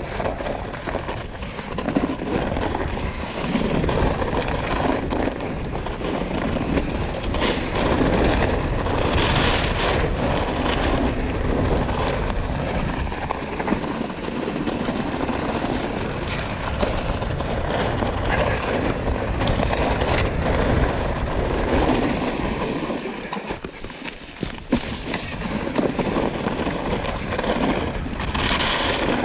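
Trek Slash mountain bike ridden at speed on a dirt trail: knobby tyres rolling over dirt and pine needles, wind buffeting the microphone, and scattered knocks and rattles from the bike over the bumps. It quietens briefly about three-quarters of the way through.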